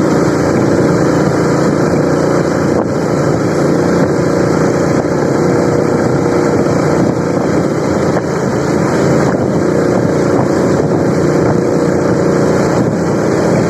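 Motorcycle engine running steadily at riding speed, with wind noise on the helmet microphone.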